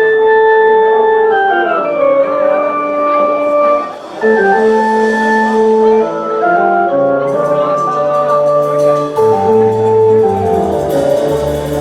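Electronic organ playing sustained chords that step downward. Cymbals join about seven seconds in, and low bass notes come in around nine seconds.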